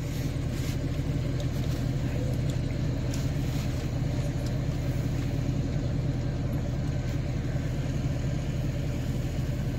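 Large military truck engine idling steadily, an even low rumble.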